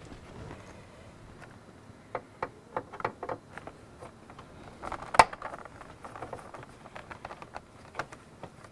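Scattered light clicks and rattles of a screwdriver backing a screw out of a plastic door-panel hand grip, with one sharp click about five seconds in.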